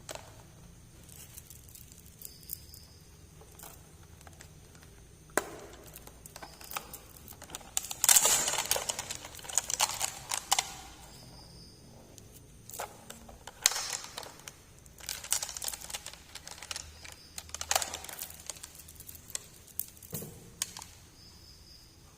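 Miniature plastic toys and their packaging being handled: scattered light clicks and taps, with louder bursts of rustling about eight seconds in and again near fourteen seconds.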